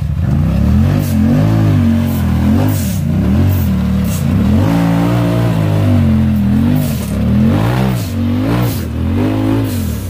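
Rock bouncer buggy's engine revving up and falling back again and again, about a dozen short throttle bursts, as the buggy claws its way up rock ledges.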